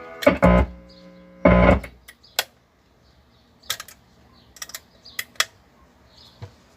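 A pitched test sound with a stack of harmonics cuts in for two short loud bursts in the first two seconds, then stops. A string of about eight sharp clicks follows, typical of buttons on a PreSonus Central Station monitor controller being pressed while its speaker outputs are tested.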